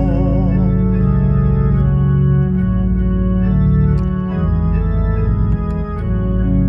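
Electronic organ accompaniment playing sustained chords that change every second or so, in an instrumental gap between sung lines of a hymn. A man's held, wavering sung note dies away in the first second.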